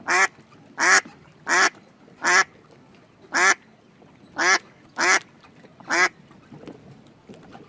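Duck quacking: about eight short, loud quacks, unevenly spaced over the first six seconds.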